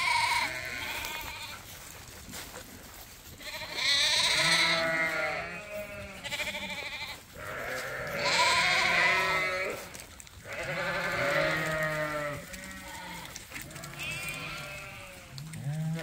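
Flock of ewe lambs bleating, several calls overlapping, with a loud bout of bleats every three or four seconds.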